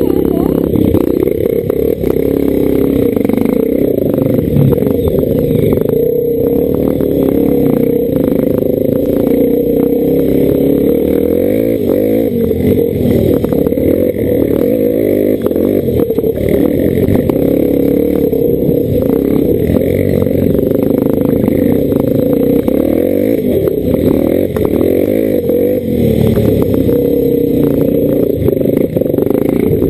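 Dirt bike engine heard from the rider's own helmet camera, running hard and rising and falling in revs as it climbs a rough trail. Rattles and knocks from the bike going over the bumpy ground.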